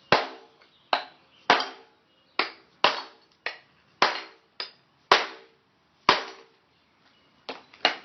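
A rubber mallet striking a flat-blade screwdriver used as a chisel to break out a cracked ceramic floor tile: about a dozen sharp knocks at an uneven pace, each with a brief ring.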